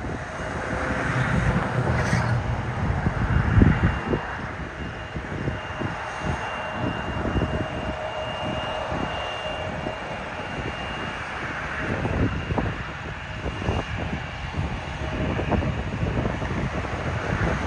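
Jet airliner taking off: the engines make a steady rushing noise with a faint high whine.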